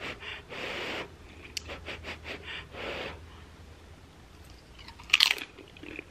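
Close-miked eating: soft breathing through the nose and small mouth clicks, then a single sharp crunch about five seconds in as a tortilla chip loaded with buffalo chicken dip is bitten.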